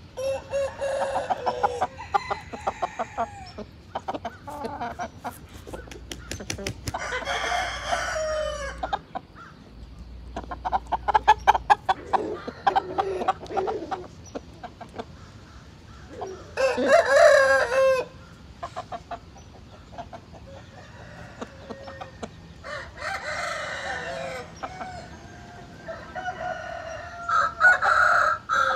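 Roosters crowing and clucking, about six separate calls, some with rapid pulsed clucks. The loudest crow comes a little past the middle.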